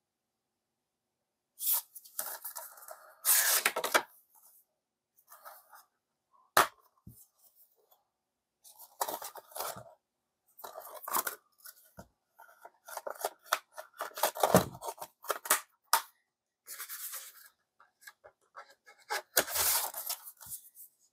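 A Blu-ray case and its cardboard slipcover being handled: card and plastic rustle and slide in separate bursts, with a few sharp clicks from the plastic case.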